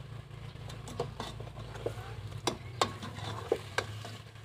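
Metal spoon stirring chicken and onions in a stainless-steel pot over a wood fire, with several sharp, irregular clinks of the spoon against the pot, over a sizzle and a steady low hum.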